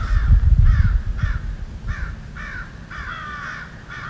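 Harsh bird calls, crow-like caws with falling pitch, repeated about every half-second to second, over a low rumble that is heaviest in the first second and then eases.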